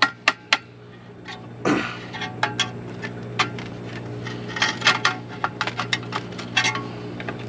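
A hammer tapping the end of a flat-head screwdriver to knock out the concentric knockout rings in a metal electrical disconnect box, giving a run of sharp metallic taps and clicks with one longer ringing strike early on. A steady low hum runs underneath.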